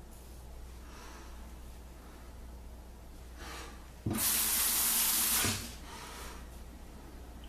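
Sink tap turned on suddenly, water running for about a second and a half, then shut off.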